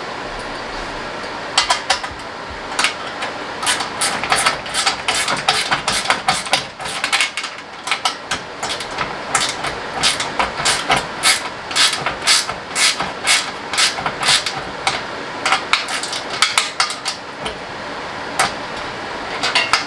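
Irregular clattering and knocking of metal tools and car parts being handled, many sharp clanks in quick uneven succession, over a steady background hum.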